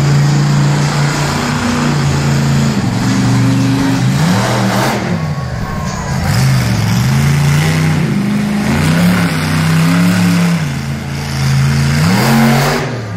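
Monster truck engine revving, loud, its pitch rising and falling several times with the throttle.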